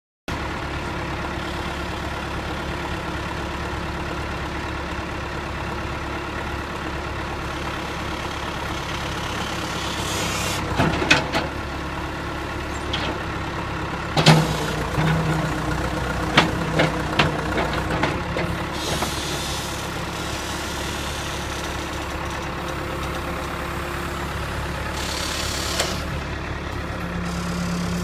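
John Deere backhoe loader's diesel engine running steadily while the backhoe digs, with a few sharp knocks from the boom and bucket in the middle.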